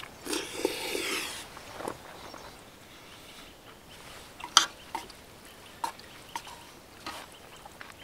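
Close-up eating sounds of doenjang noodle soup: a noisy slurp of noodles about half a second in, then chewing with a scattering of short, sharp clicks.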